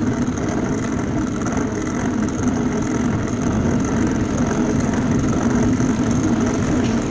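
Steady wind buffeting and rumble on a phone microphone while riding a mountain bike.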